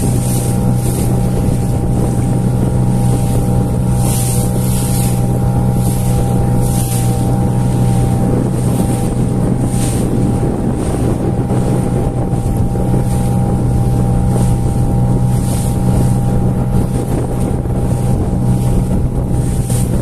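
Outboard motor of a small boat running steadily at cruising speed, its pitch unchanging, with wind buffeting the microphone and gusts of rushing noise from wind and water over the bow.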